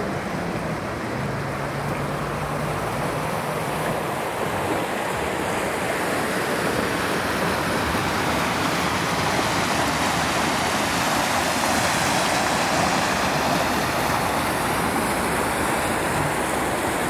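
Steady rush of a shallow river flowing over stones, a continuous even noise. A faint low hum sits under it for the first few seconds.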